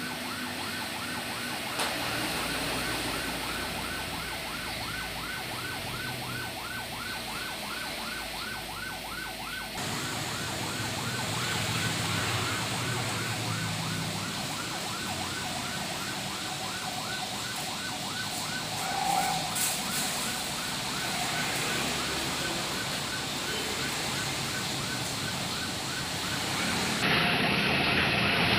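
Electronic siren of a Daihatsu Luxio ambulance conversion sounding in a fast repeating yelp, about four short rising sweeps a second.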